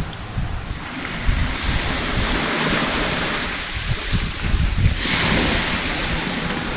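Small waves breaking and washing up a sandy beach, with wind buffeting the microphone in gusts; the surf swells louder about five seconds in.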